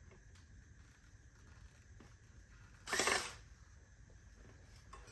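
A short whirr, about half a second long, about three seconds in, from an electric screwdriver driving a small M3 screw into a wheel cover; otherwise faint room tone.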